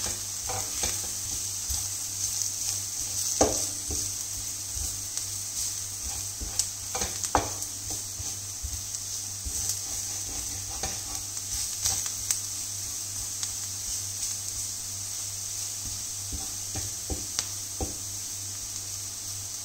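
Onions, green chili, garlic and spices sizzling in oil in a stainless steel frying pan, with a steady hiss. A wooden spatula stirs them, scraping and knocking against the pan now and then, most sharply about three and a half and seven seconds in.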